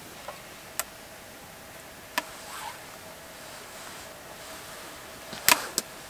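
Small twig fire in a stone ring crackling, with four sharp pops over a faint steady hiss; the loudest pop comes about five and a half seconds in.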